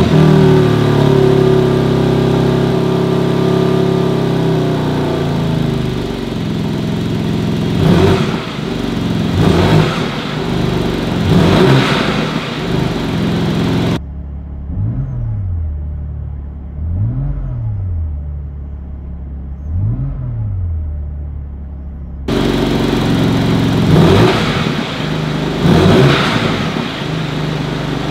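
BMW M3 Touring Competition's twin-turbo 3.0-litre straight-six running just after start-up, its high idle settling lower over the first several seconds. It is then blipped repeatedly in short revs about two seconds apart. In the middle section three blips are heard muffled from inside the cabin, then the revs are heard again from outside at the exhausts.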